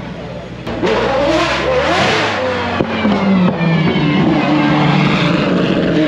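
Supercar engines running close by; about a second in one revs up sharply, its pitch rising and falling before settling to a steady note.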